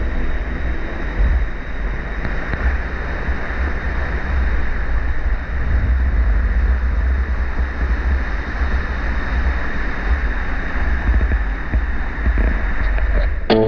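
Steady rush of a mountain waterfall and stream, close and loud, with a heavy low rumble.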